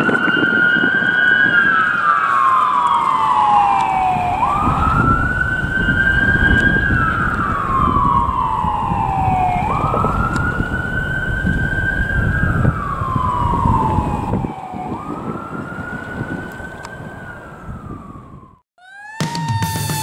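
Ambulance's electronic siren on wail: each cycle rises quickly, holds, then glides slowly down, repeating about every five seconds, over low traffic rumble. It grows fainter near the end as the ambulance moves away.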